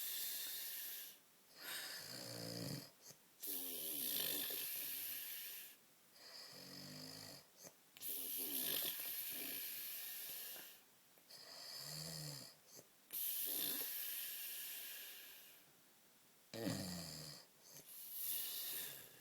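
A man snoring in heavy sleep: a short pitched snore alternating with a longer breathy hiss, the cycle repeating about every four to five seconds.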